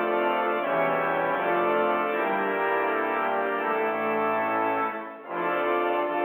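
Organ playing sustained chords, with a brief break between phrases about five seconds in.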